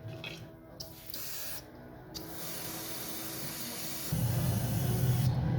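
Spray paint hissing from a nozzle in two bursts, a short one about a second in and a longer one of about three seconds. Underneath there is background music, with a loud low hum coming in near the end.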